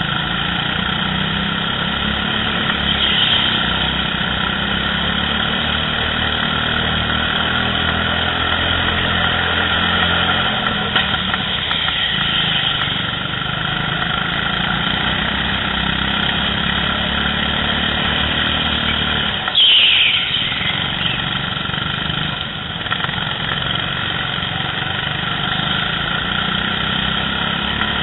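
Go-kart engines running during a race, heard from a helmet camera, the engine note shifting up and down with the throttle. About two-thirds of the way through, a short loud squeal falls in pitch, the loudest moment.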